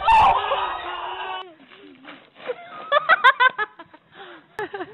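A thump near the start with loud shouting voices as a rider on an inflatable tube crashes into a hallway wall; after a cut, someone giggles in quick bursts.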